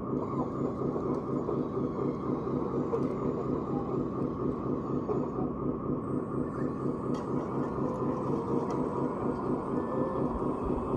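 Radio-controlled construction model running: a steady mechanical drone of electric motors and gearing that stays even throughout, with a fine, rapid rattling texture.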